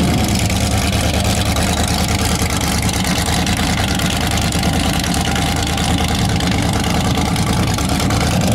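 Supercharged V8 of a Holden VL Commodore running hard through a burnout, its rear tyres spinning and smoking; the engine note holds steady.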